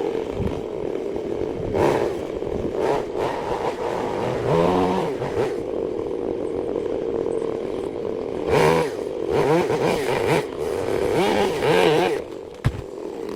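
Electric woodworking power tool running with a steady hum, its pitch wavering and dipping several times as it works through the wood, with a sharp click near the end.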